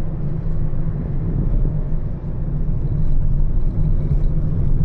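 Steady low rumble of a vehicle in motion, with no distinct events.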